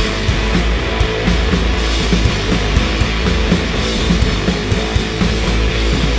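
Rock band playing an instrumental passage live and loud: electric guitar, bass guitar and drum kit, with no singing.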